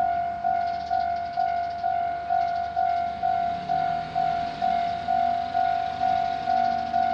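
Japanese railroad-crossing warning bell ringing an even, repeated clang, a bit over two strikes a second, each one fading before the next: the crossing is active, warning that a train is coming. A low hum rises in pitch underneath in the second half.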